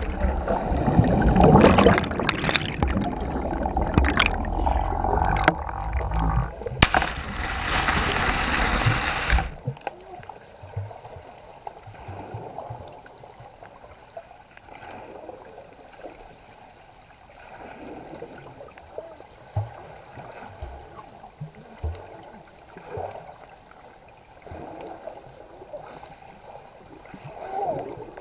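Water churning and bubbles rushing past a GoPro as it plunges underwater, heard from inside its waterproof housing, loud for about nine seconds and then stopping abruptly. After that only a quiet muffled underwater hiss with faint scattered knocks remains as the camera lies on the gravel bottom.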